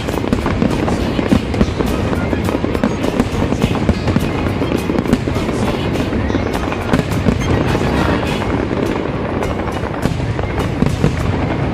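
Fireworks display going off without a break, a dense crackle of many pops a second.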